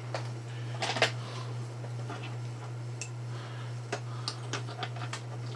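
Light, irregular metallic clicks and taps of small steel lathe tooling being handled and set at the tool post of a Proxxon FD 150/E mini lathe, two close together about a second in and a quick cluster near the end, over a steady low hum.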